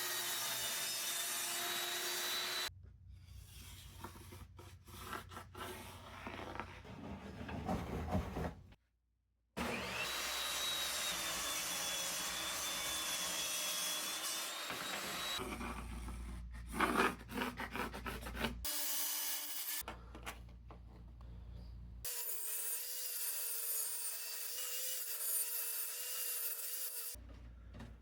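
A run of short workshop clips: a power saw running and cutting through wood, its steady high whine over the cutting noise, broken up by quieter handling and tool sounds between cuts, with abrupt changes where the clips are spliced.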